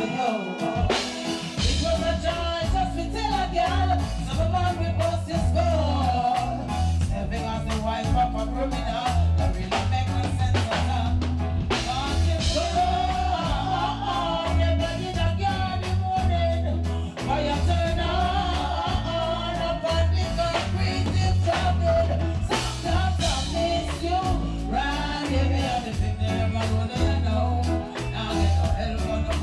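Live reggae band playing, with a woman singing lead over a heavy bass line.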